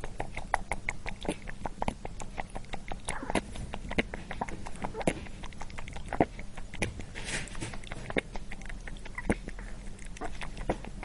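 A rabbit crunching a crispy chip: a rapid, irregular string of sharp crunches over a low steady hum, with a brief rustle about seven seconds in.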